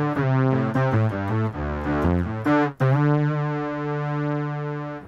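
Electric guitar played through a Boss SY-200 synthesizer pedal on a synth-bass patch: a run of short notes, then one note held for about two seconds, fading out near the end.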